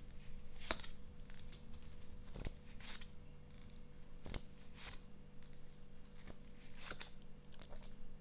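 Tarot cards being drawn and laid out: a few faint, scattered clicks and rustles of card handling over a low steady hum.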